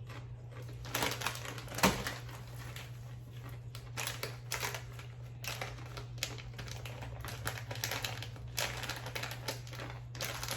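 Crunchy snack chips being bitten and chewed close to the microphone: irregular crisp crunches, with one loud snap about two seconds in, over a steady low electrical hum.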